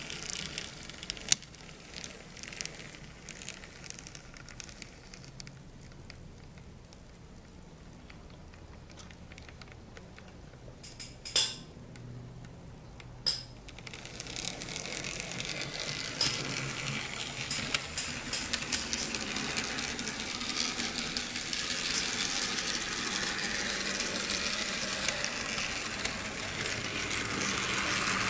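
An N scale Bachmann DDA40X locomotive chassis running on track with its shell off: a small motor and newly fitted 3D-printed axle gears whirring, replacements for factory gears that cracked. There are two sharp clicks shortly before the middle, and from about halfway the whirr grows louder and keeps building.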